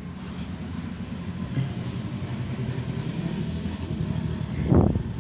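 Low rumble of close camera handling and rustling grass as a hand reaches into a hollow under a fallen tree trunk, with a short, louder thump near the end.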